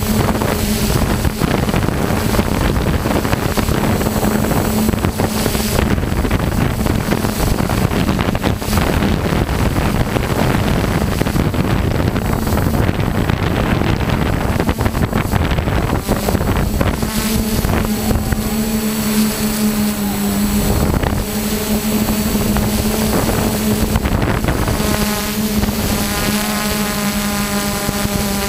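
Multicopter drone's motors and propellers humming steadily, picked up by the drone's own onboard camera, with wind noise over the microphone. The hum is mixed with rushing wind for the first half and stands out as a clearer, steadier tone in the second half.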